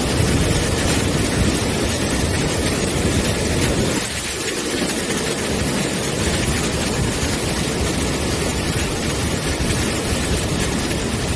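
Floodwater rushing in a steady, loud torrent, its low rumble easing briefly about four seconds in.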